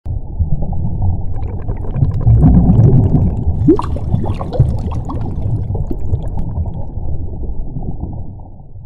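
Underwater sound effect: a low rumble with gurgling bubbles, swelling about two seconds in to a rush of bubbles with a few short rising blips, then fading toward the end.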